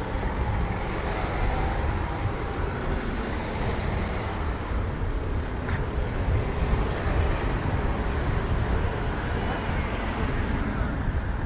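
City street ambience: a steady rumble of road traffic, with a single short click about six seconds in.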